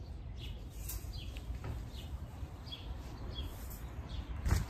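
Birds chirping over and over in short high calls above a steady low rumble, with one sharp knock near the end.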